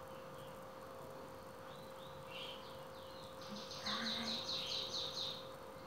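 A small animal chirping: a quick run of about ten high chirps, roughly five a second, about halfway through, with a few scattered chirps just before. A faint steady hum runs underneath.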